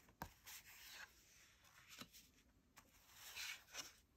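Faint rustling and sliding of card-stock art prints handled by hand, with a few soft paper taps.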